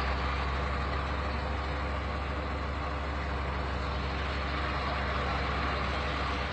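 A heavy vehicle's engine running steadily at an even pitch.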